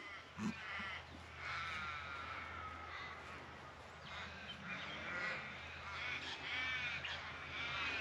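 Crows cawing in the background: several faint, drawn-out calls one after another.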